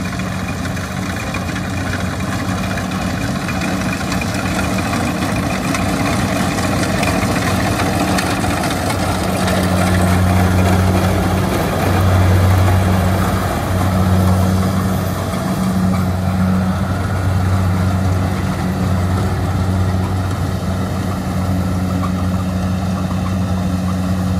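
Kubota DC-70 combine harvester running steadily while it cuts rice: a diesel engine's steady hum under the clatter of the header and threshing machinery. It grows louder around the middle as the machine passes close.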